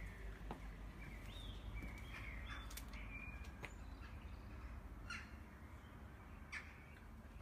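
Faint bird chirps and short whistled calls over a steady low background rumble, with quick chirps about five and six and a half seconds in.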